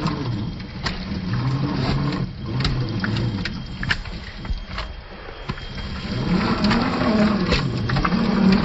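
Traxxas TRX-4 Sport RC crawler's electric motor and drivetrain whining, the pitch rising and falling with the throttle as it works through mud, with scattered sharp clicks.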